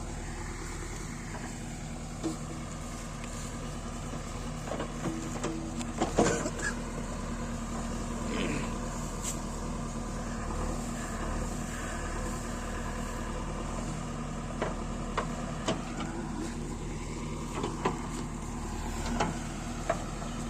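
JCB 3DX backhoe loader's diesel engine running steadily while the machine works, with scattered short knocks and clanks, the loudest about six seconds in.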